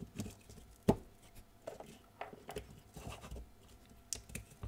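Plastic wiring-harness connectors being pushed and seated onto a GM P11 powertrain control module's finned metal case: a sharp knock about a second in, then a scatter of lighter plastic clicks and taps as the plugs are worked into place.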